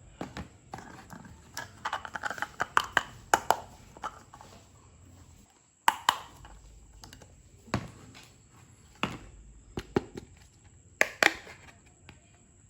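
Small plastic toy kitchen pieces being handled and set down: a quick run of clicks and taps with rustling, then single sharp clicks about every second or two, some with a brief ring.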